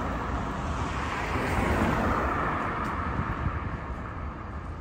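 A car driving along a city street, its road and engine noise heard from inside. The noise swells about two seconds in and then eases off.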